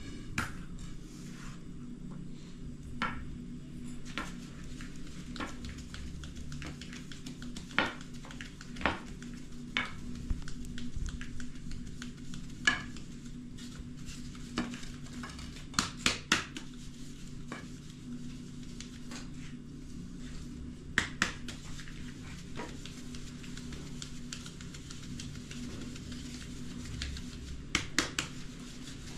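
Flour being sifted through a wooden-rimmed sieve over a large aluminium basin: soft shaking with irregular sharp knocks and clinks as the sieve frame strikes the metal basin, a few of them louder. A steady low hum runs underneath.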